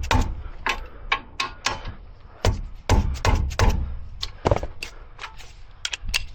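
A run of sharp, irregular metallic clicks and knocks, about twenty of them, from a half-inch-drive ratchet and socket working the brake hardware bolts as the front brake is reassembled.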